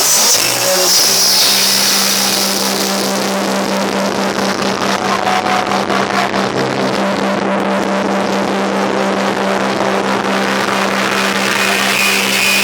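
Loud, distorted nightclub dance music from a DJ set, a steady low drone under a dense noisy wash that thins in the highs midway and fills back in near the end.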